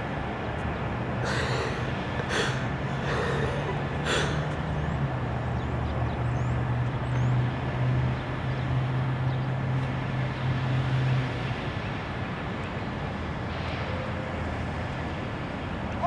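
Outdoor traffic noise with a vehicle engine's low steady hum for several seconds in the middle, and a few short bursts of noise in the first four seconds.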